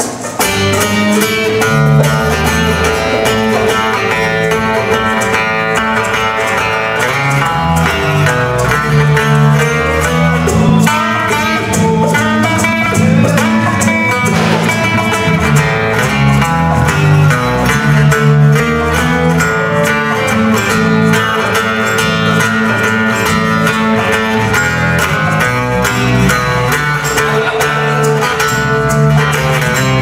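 A live band playing, led by guitar over a steady, repeating bass line.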